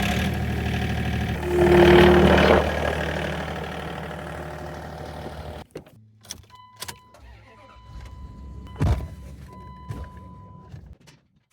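A vehicle engine starts abruptly, revs up once about two seconds in, settles back, and shuts off after about six seconds. Then an electronic tone sounds on and off, with a few clicks and knocks.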